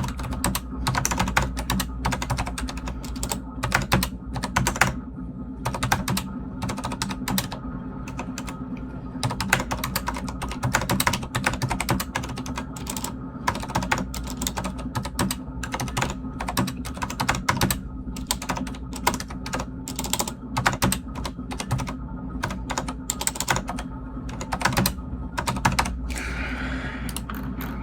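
Typing on a Corsair STRAFE mechanical keyboard with Cherry MX Silent switches: fast, continuous, irregular keystrokes.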